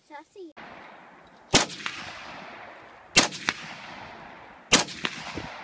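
Three rifle shots from an SKS semi-automatic rifle (7.62×39mm), evenly spaced about a second and a half apart, each with a sharp crack followed by echo across the range.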